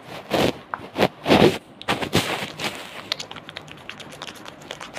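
A few short vocal sounds in the first half, then rapid light clicking or tapping, several clicks a second, from about halfway through.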